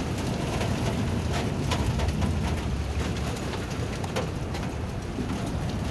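Hail storm pelting down: a dense, steady patter of small sharp hits over a low rumble.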